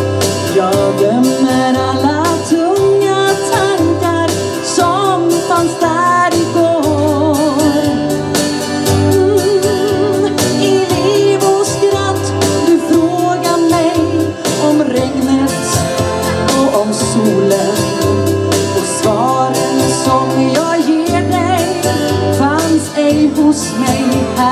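A woman singing with vibrato into a microphone over amplified backing music, which has a steady pulsing bass line and a cymbal beat.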